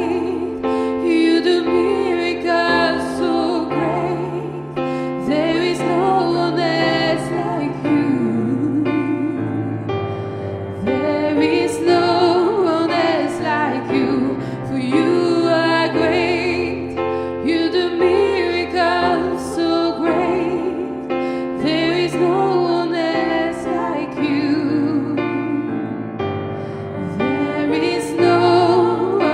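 Two women singing a gospel worship song with vibrato, over an accompaniment of long held chords.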